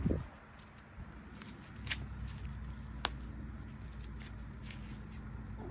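Alabai and Great Dane puppies scuffling on a concrete patio: scattered light scratches and clicks of claws and paws on the concrete, with a low rumble underneath.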